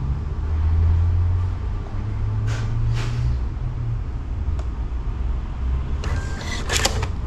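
A self check-in kiosk clicks twice briefly over a steady low hum. Near the end a short mechanical buzzing rattle comes from the kiosk as it processes the check-in.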